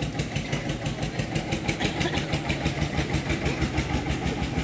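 An engine idling steadily, with an even, rapid pulse.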